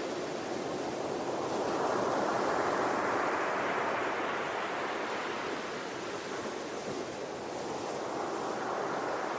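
Ocean waves breaking and washing on the shore, a continuous rush of surf that swells about two seconds in and slowly eases off.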